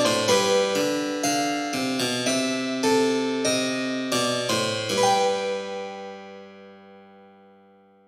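Background keyboard music: a run of quick, crisply struck notes ending on a final chord about five seconds in, which rings on and fades away to silence.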